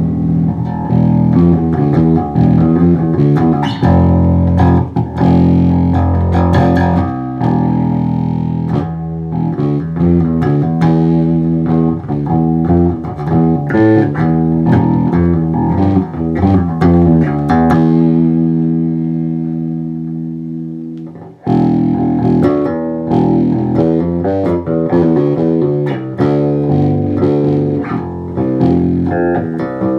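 Custom-built Westrose electric bass with Seymour Duncan passive pickups, played plugged in with both pickups on: plucked notes and riffs. Past the middle, one note is left to ring and fade for a few seconds before the playing starts again.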